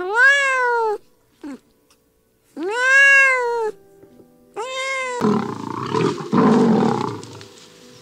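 Animal calls: three drawn-out cries that rise and then fall in pitch, then a rough, noisy growl starting about five seconds in.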